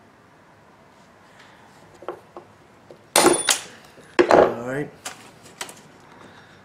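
Steel MIG pliers snip through a brass pin with a sharp, ringing metallic snap about three seconds in. About a second later the pliers clatter down onto a wooden workbench, with a few lighter clicks of metal on wood around them.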